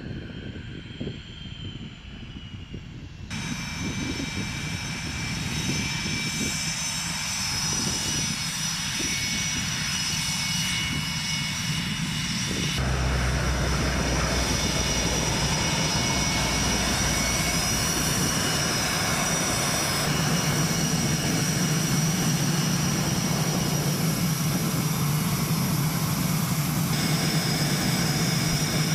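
Twin jet engines of an F/A-18D Hornet running while it taxis: a steady high turbine whine over a rumbling roar of jet noise. The sound is quieter for the first few seconds, then grows louder, with several abrupt jumps in level and tone.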